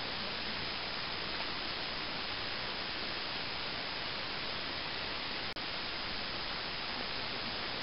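Steady hiss from a Bushnell Trophy Cam trail camera's built-in microphone, with no distinct sound from the grazing deer. The hiss drops out for a moment about five and a half seconds in.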